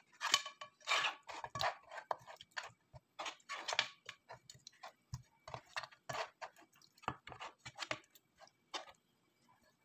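Wet squishing and squelching of a bare hand rubbing sauce-coated lamb pieces around in a baking pan: a stream of short, irregular squelches that thins out and stops near the end.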